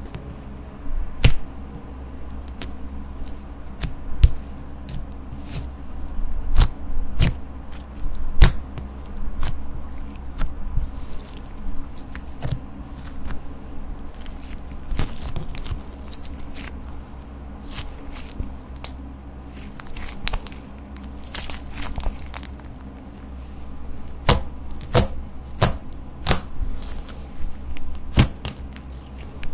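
Sticky slime mixed with crushed eyeshadow being peeled up, kneaded and pressed by hand. It makes irregular sharp pops, crackles and tearing sounds, coming thicker near the end, over a steady low hum.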